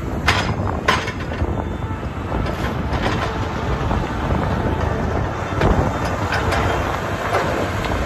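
New Holland LS170 skid steer's diesel engine running as the machine moves and drives, with two sharp clanks from the machine in the first second and a few more later on.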